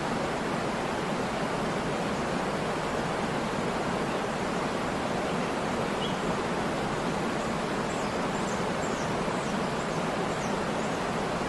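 Waterfall: water falling steadily onto rocks and into a pool as an even, unbroken rush. A few faint high chirps come in near the end.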